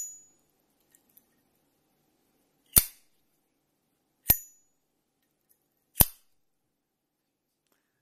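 Zippo Armor Facet lighter's hinged lid: it clicks shut, flicks open with a short metallic ping about a second and a half later, and clicks shut again a second and a half after that. These are three sharp metal clicks.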